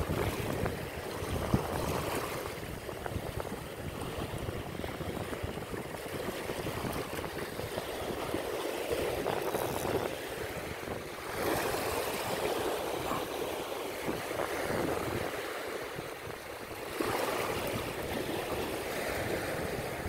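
Sea surf washing over a shallow rocky reef shore: a steady wash of water that swells and eases, with a single knock about a second and a half in.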